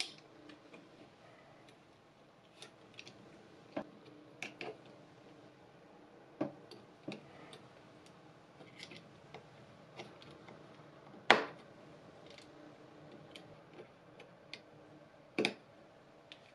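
Irregular light clicks and taps of a Corsair M65 mouse's plastic parts being handled and fitted together by hand. One louder click comes about two-thirds of the way through, and another near the end.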